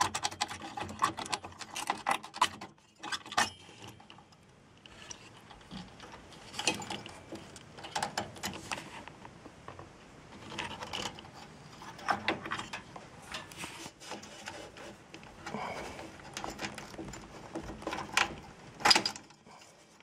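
Intel stock CPU cooler being handled and lifted off a motherboard: irregular clicks, rattles and scrapes, with one sharper click about a second before the end.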